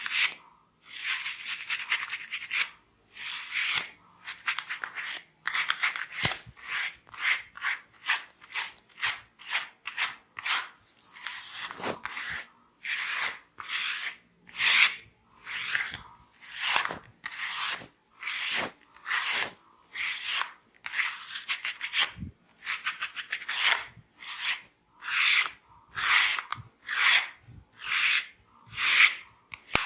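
Hair cracking: hands pulling and rubbing strands of hair between the fingers, making repeated short crackling, rasping strokes about once a second.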